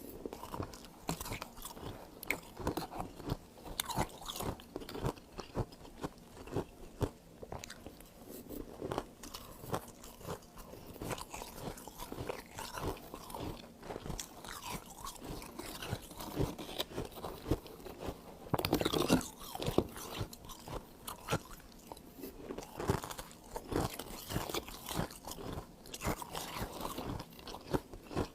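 Freezer frost being bitten and chewed, a dense run of crunchy crackles, with a louder flurry of crunches about two-thirds of the way through.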